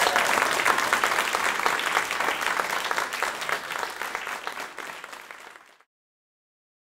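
Audience applauding, many hands clapping together. The clapping fades over the last couple of seconds and cuts to silence about six seconds in.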